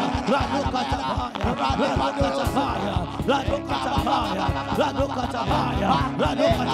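Worship music with steady held keyboard notes under a voice rapidly praying in tongues.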